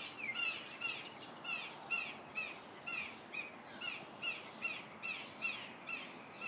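Blue jays scolding, throwing a fit: a steady series of short, repeated calls at about three a second, with a couple of birds calling together. The observer puts their agitation down to chickens below.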